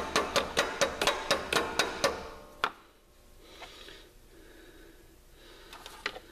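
A quick, even run of light metal-on-metal taps, about five a second, that stops about two seconds in. One more tap follows, then two faint ones near the end.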